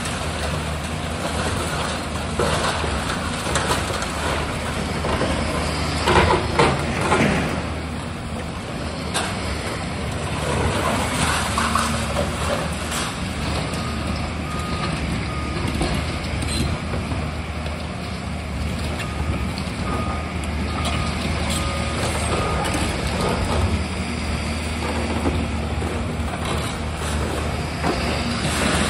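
Tracked demolition excavator's diesel engine running steadily as its attachment pulls at a concrete building, with crashes and clatter of falling debris, loudest about six to seven seconds in and again near the end. A faint high beeping comes and goes in the middle.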